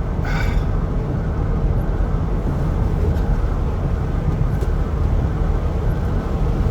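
Steady low rumble of a vehicle's engine and road noise heard from inside the cabin.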